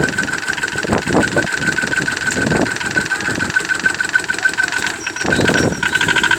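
Small engine of a 45 km/h microcar running, with a steady high whine and a fast, even pulsing rattle. It swells louder a few times, around one second in, at two and a half seconds, and again near the end.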